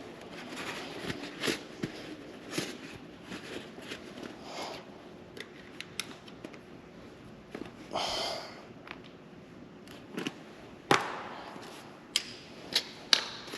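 Scattered clicks and light taps of tools and brake parts being handled while a motorcycle front brake caliper is put back together, with a brief scraping rustle about eight seconds in and a few sharper clicks near the end.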